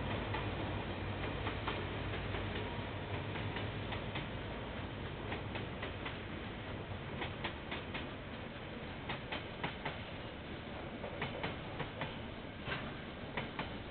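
KiwiRail train passing: wheels clicking over the rail joints, often in quick pairs, the clicks coming thicker in the second half, over a steady rumble. A low drone, likely the locomotive, fades away over the first few seconds.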